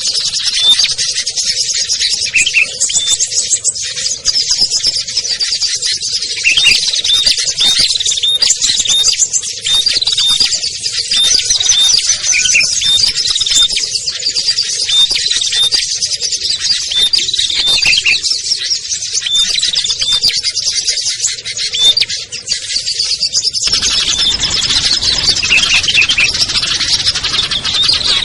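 Many small songbirds chattering at once in a dense, continuous stream of rapid high-pitched chirps and trills: a mixed small-bird lure recording of agitated calling. About three-quarters of the way through, the recording changes and a steady hiss comes in underneath the birds.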